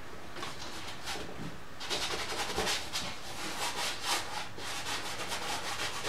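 Paintbrush scrubbing oil paint onto a canvas in short rubbing strokes, a few a second, growing brisker and louder from about two seconds in.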